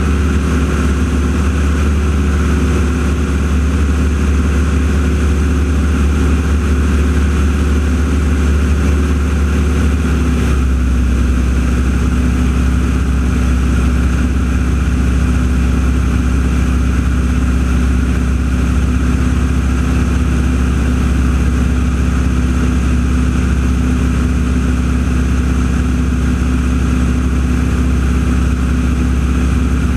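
An engine running steadily and loudly, with a deep drone; its note shifts suddenly about ten seconds in.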